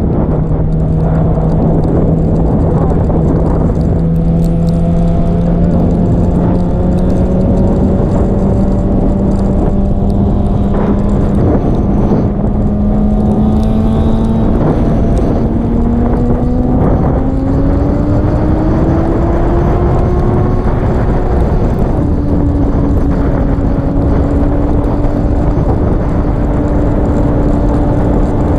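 Motorcycle engine pulling as the bike gathers highway speed, its pitch climbing slowly and then faster about two-thirds of the way through, dropping a step and then holding steady, with wind rush over the microphone.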